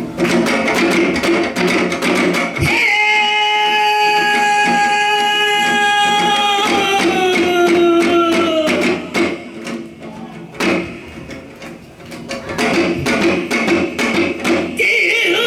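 Janggu (Korean hourglass drum) played in a quick rhythm. The drumming gives way to a long held note that slides down at the end, followed by a quieter pause with a single stroke. The rhythmic drumming resumes near the end.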